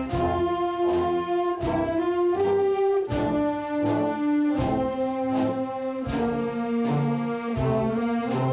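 Brass ensemble playing slow processional music: held chords with a strong accent on each beat.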